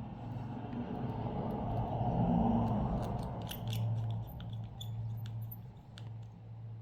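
Small sharp clicks and light scraping of hand tools working on a smartphone's internals, with a cluster of clicks about halfway through. A steady low hum runs underneath.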